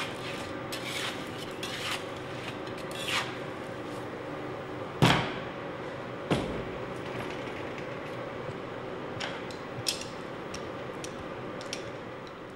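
A metal knife scraping and rubbing on a cooling table as a slab of cooked sugar is folded over. There is a sharp knock about five seconds in and another just after six seconds, with small clicks later, over a steady hum.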